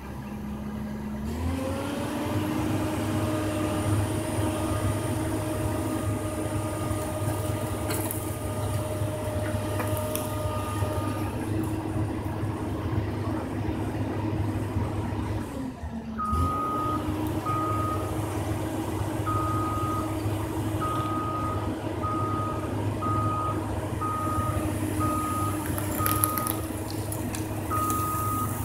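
Komatsu PC200 excavator's diesel engine revving up from idle and working hard under hydraulic load, with a brief dip partway through before it climbs back. A high steady tone runs over it and turns to intermittent beeping in the second half.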